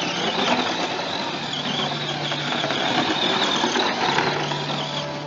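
Electric motor of a battery-powered RC truck running under throttle: a high whine with drivetrain noise that starts about half a second in and fades just before the end as the truck drives across grass.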